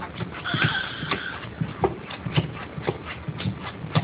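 A baby slapping and patting the skin head of a large drum with open hands: irregular soft thumps and taps, several a second. A brief high-pitched baby vocalization about half a second in.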